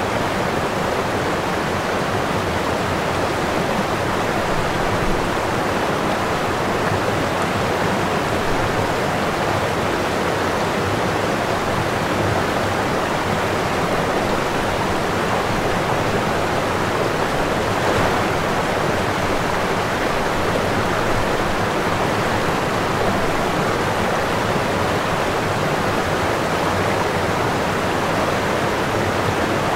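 Steady rush of water falling at a small waterfall, an even, unbroken noise with no changes.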